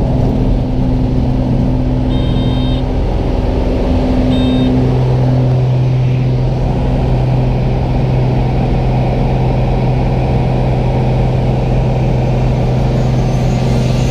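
Piston engine of a small single-engine skydiving plane at takeoff power, heard from inside the cabin during the takeoff roll on grass and lift-off: a loud, steady drone that grows stronger about four to five seconds in. Two short high beeps sound around two and four seconds in.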